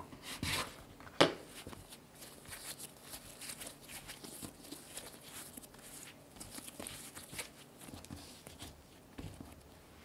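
A plastic dough scraper cuts through soft bread dough and knocks once, sharply, on the wooden cutting board about a second in. Then come many small soft pats and squishes as hands round the dough pieces into balls on the board.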